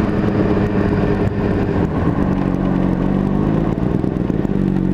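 Honda CBR600RR's inline-four engine running, its note dropping about two seconds in and again near the end, then holding steady. It is heard through a helmet microphone, with rushing noise under it.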